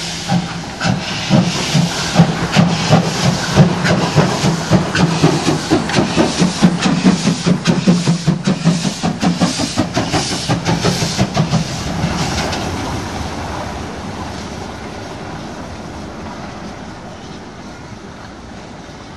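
Class 50 steam locomotive working past at close range: quick, regular exhaust beats over steam hiss. About twelve seconds in, the beats give way to a smoother sound that fades steadily as the engine draws away.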